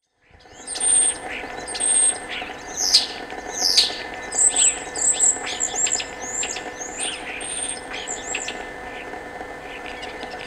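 Common starling singing: a busy run of varied high whistles, down-slurred notes and clicks, thinning out near the end, over a faint steady hum.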